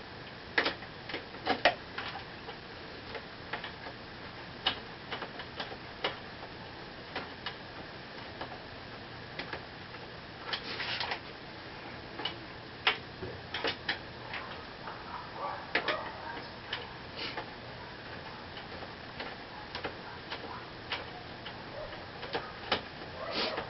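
Irregular metallic clicks and clinks of a box-end wrench being worked on a 12 mm fork top clamp bolt and against the clamp, at uneven intervals with a few quick clusters.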